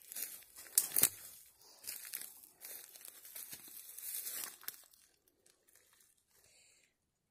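Dry leaves and brush rustling and crackling in irregular bursts as people move about and handle things in the undergrowth, with a sharp crack about a second in; the rustling dies down to almost nothing after about five seconds.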